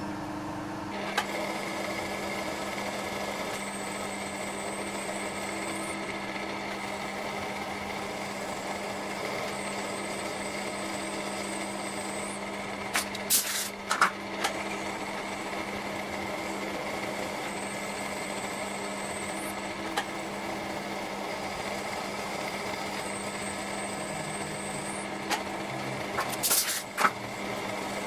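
Milling machine running while a small end mill cuts a keyway into a 4140 steel shaft: a steady motor hum with a high whine that comes and goes several times. A few short sharp clicks around the middle and near the end.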